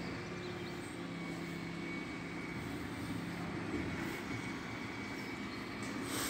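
Refuse collection lorry's diesel engine running with a steady low hum and a thin, steady high whine.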